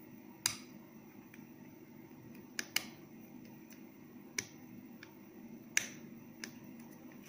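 Short, sharp metallic clicks of combination pliers gripping and bending thin stainless-steel wire, about six at irregular intervals, a close pair near the middle, over a low steady hum.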